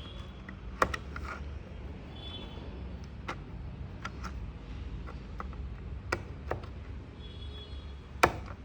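Scattered small clicks and taps of hands working a plastic LCD writing pad while removing its CR1616 coin cell, the sharpest click near the end, over a low steady hum.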